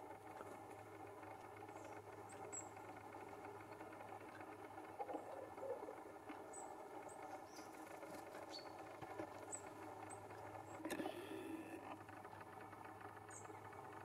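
Female great spotted woodpecker pecking and probing a rotten log: faint, irregular taps and scratching, a little stronger about five seconds in and again near eleven seconds, over a steady low hum.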